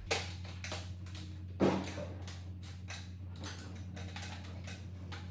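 Light knocks and clicks of a sheet-metal car roof skin being lifted and carried onto the car's body shell, with a sharp knock at the start and a louder thump about a second and a half in. A steady low hum runs underneath.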